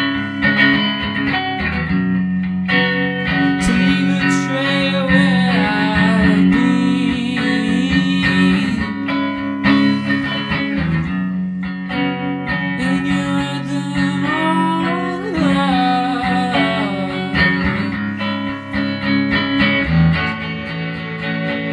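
Guitar playing an instrumental passage of a song, notes sustaining and overlapping, with some bending melodic lines.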